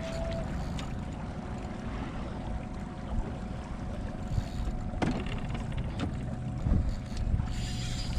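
Wind buffeting the microphone over water lapping against a drifting flats skiff's hull, with a few sharp knocks about five to seven seconds in.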